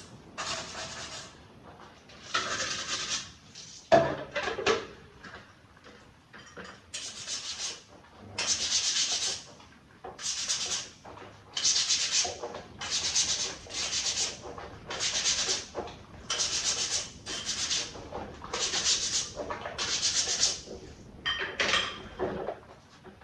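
Hand sanding or scrubbing of a lamp part: repeated back-and-forth strokes of abrasive, about one a second and steady from a few seconds in. Near the start a single sharp knock stands out, the loudest sound here.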